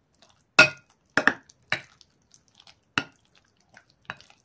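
A spoon knocking and clinking against a glass bowl while stirring a thick mayonnaise salad: about six separate clinks, the loudest about half a second in.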